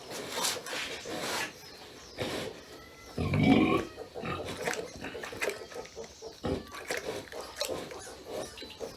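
Pigs grunting, with one loud, rough cry from a pig about three seconds in, among scattered short clicks and rustles.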